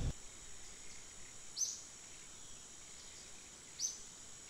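A bird gives two short, high chirps about two seconds apart over a steady high-pitched insect drone.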